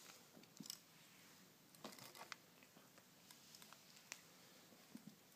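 Near silence with a few faint, scattered scuffs and clicks from a cat rolling and pawing at a toy on carpet.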